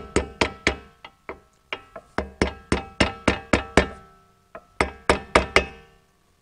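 Small hammer tapping brake pad pins into a Porsche Macan's aluminium front brake caliper. The quick metal taps come about three or four a second, each with a short ring, in runs with brief pauses between.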